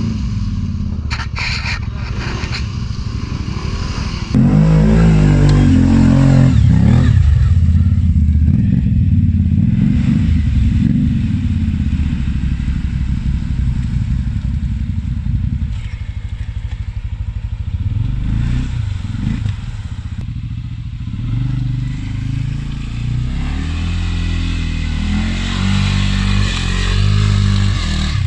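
ATV engine running, its pitch rising and falling with the throttle, with a sharp rev-up about four seconds in.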